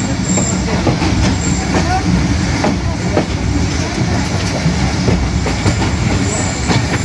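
Passenger train running, heard from inside a coach: a steady rumble and clatter of wheels on the track with scattered clicks.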